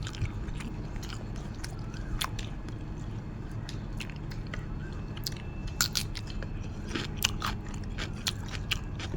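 A person chewing and biting food close to the microphone: nam tok moo, a grilled pork salad. Irregular wet mouth clicks and small crunches come and go over a steady low hum, and they grow busier in the second half.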